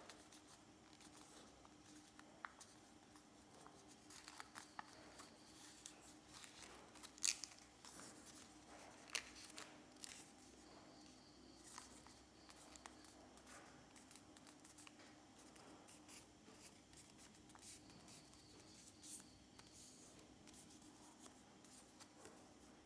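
Paper being folded and creased by hand: faint, crisp rustles and clicks, with the sharpest creases about 7 and 9 seconds in.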